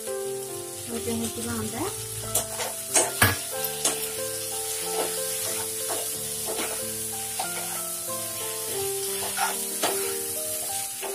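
Spiced masala sizzling in a nonstick kadai while steamed egg pieces are stirred in with a steel spatula, which scrapes and clicks against the pan several times. Soft background music plays underneath.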